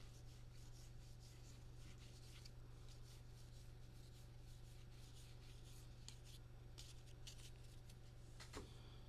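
Faint rustling and flicking of baseball trading cards being flipped through by hand, with one sharper tick near the end, over a low steady hum.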